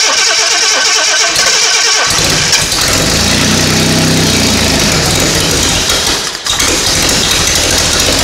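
Jaguar 4.2-litre DOHC straight-six being cranked by its starter motor, catching about two seconds in and running, with a brief stumble a little after six seconds. On its newly fitted carburettors it is only starting to take fuel, and the crew suspect the carburettor jets may need opening up.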